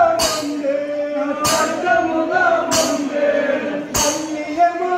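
Kummi folk song: voices singing a melody over a sharp percussive beat that falls about once every second and a quarter.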